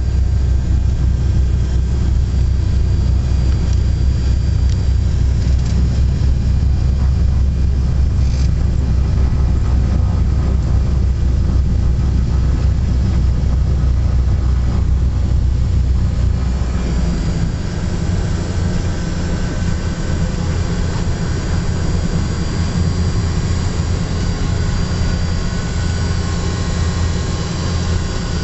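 Britten-Norman Trislander's three piston engines and propellers droning inside the cabin, loud and steady. About 17 seconds in, the deep drone drops away abruptly, leaving a lighter engine sound with more hiss.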